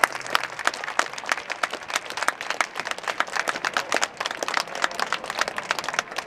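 Stadium crowd applauding: many overlapping, irregular handclaps, some louder than the rest.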